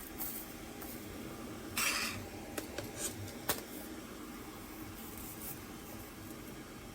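Faint handling sounds over a steady low hum: a brief rub just under two seconds in, then two small clicks about a second apart.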